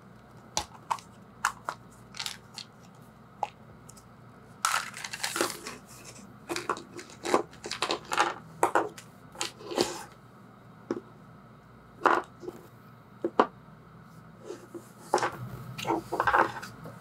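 A plastic gachapon capsule being twisted and pulled open by hand and a toy figure unwrapped from its packaging: a string of sharp plastic clicks and snaps with bursts of crinkling and rustling, busiest in the middle and again near the end.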